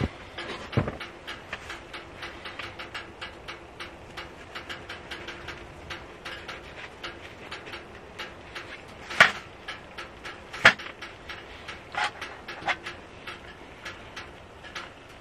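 A knife cutting a slice from a crusty bread loaf and tableware being handled, with sharp clicks and knocks, two loud ones a little past halfway, over a steady fine crackle of small ticks.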